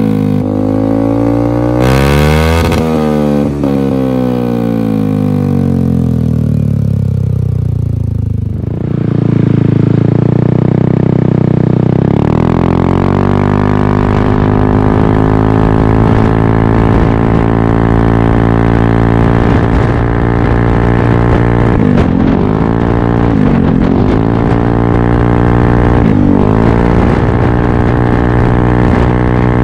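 Yamaha Aerox 155 scooter's single-cylinder engine running through an aftermarket Corse Italian Performance exhaust. The revs fall away to a low point over the first several seconds, then rise to a steady higher speed held for the rest, with a few brief dips near the end.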